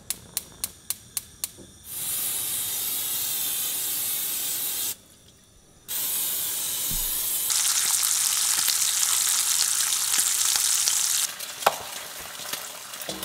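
A gas stove's igniter clicks rapidly, about four times a second, then a steady hiss follows as the burner lights. After a short break, cooking spray hisses into a pan for several seconds, and a few light knocks follow near the end as eggs are lifted from a cardboard carton.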